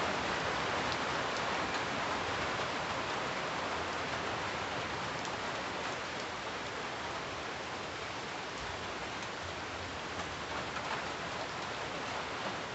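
Steady rain falling on tree leaves: an even hiss with scattered drop ticks.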